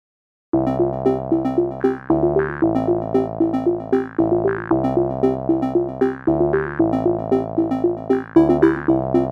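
Background music: a quick, repeating run of notes over a shifting bass line, starting about half a second in after silence.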